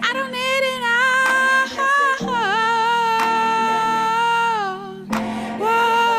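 A woman singing long, held notes that slide and bend between pitches, with no clear words, over a steady low backing chord; the voice breaks off briefly about five seconds in, then comes back on a single held note.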